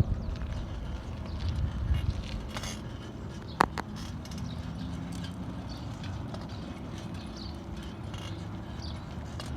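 Outdoor background noise: a low rumble that eases after about two seconds, then a steady low hum, with one sharp click and a brief ring about three and a half seconds in.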